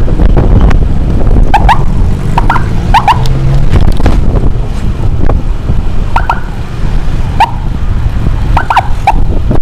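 Wind and road noise from a moving motorcycle, overlaid by short high warning chirps that come in twos and threes every second or two.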